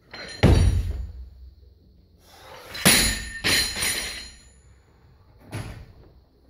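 Loaded barbell with bumper plates dropped onto the floor, landing with a heavy, deep thud that rings on in the room about half a second in. Sharper clanking knocks follow around the middle, and a smaller thud comes near the end.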